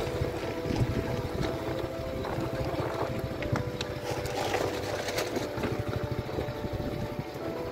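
Motorcycle engine running with a fast low pulse while the bike rides over a rough off-road track, with scattered clicks and knocks.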